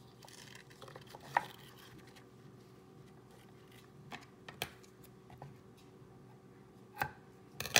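Scissors being handled and snipping a narrow ribbon on a wooden cutting board: a few scattered sharp clicks and taps, the loudest near the end.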